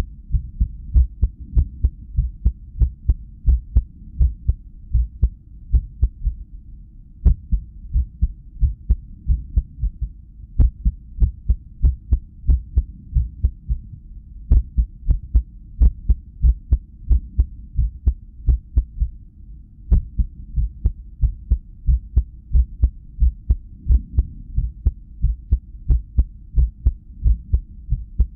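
Heartbeat audio from a cardiac ultrasound at rest: a run of deep whooshing pulses, about two to three a second, broken by a few short pauses. The beat is irregular, an arrhythmia that the owner puts down to lack of sleep.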